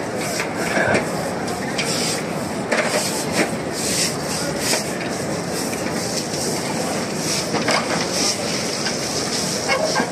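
Dense crowd noise of many people walking and talking at once on a stone courtyard, with scattered clicks and taps.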